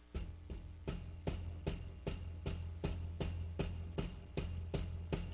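Song intro by a rock band: jingling percussion struck in a steady beat, about two and a half strikes a second, over a held low bass note.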